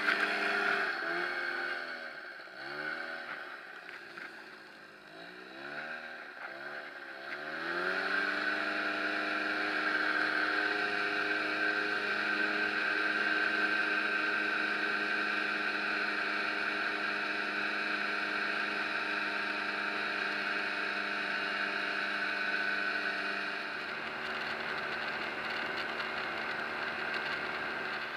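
Powered paraglider trike's engine and propeller revving up and down in repeated short throttle bursts, then opened up to a steady high-power drone from about eight seconds in for the takeoff and climb. The note eases off slightly near the end.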